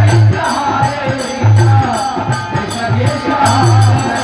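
Kirtan music: a drum beating out a rhythm with repeated low strokes, bright jingling percussion on the beat, and a wavering melody line over them.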